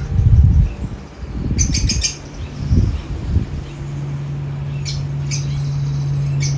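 Hummingbird giving short, high chirps in a few quick clusters, over low rumbling in the first few seconds and a steady low hum.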